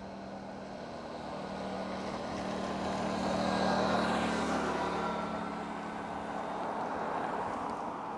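Motor vehicle engine and road noise: a steady low hum with a wash of tyre and road noise that swells to its loudest about four seconds in, then eases off.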